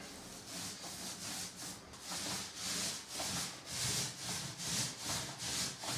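Paint roller loaded with wet paint being rolled up and down a wall: a rhythmic swish about twice a second, louder after about two seconds.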